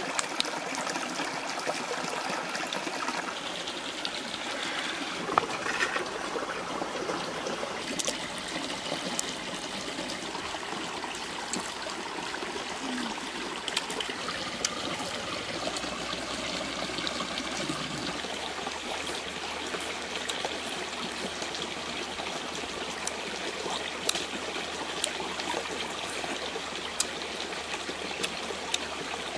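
Steady sound of running water, like a small stream, with scattered small clicks and taps over it.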